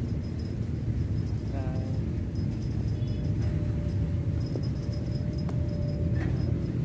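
Steady low outdoor rumble, with a short high-pitched call about one and a half seconds in and a faint steady tone through the middle.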